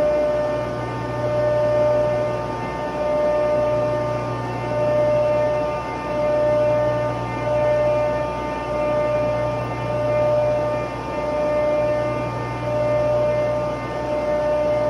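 Steady machinery hum from running plant-room equipment, with a strong low drone and several steady higher tones. The whole sound swells and fades about every second and a half, and a mid-pitched whine cuts in and out.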